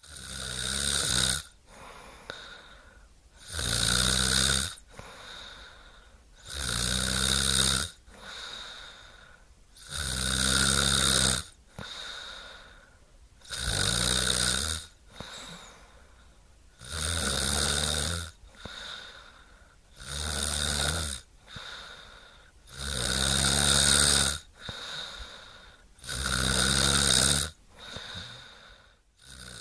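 A sleeping person snoring in a steady rhythm: one loud snore about every three and a half seconds, about nine in all, with quieter breaths in between.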